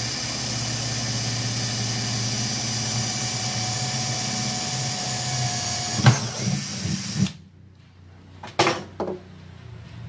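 Cordless drill running steadily as it bores into the bridge of an acoustic guitar, stopping about seven seconds in. A few knocks follow as the guitar is handled.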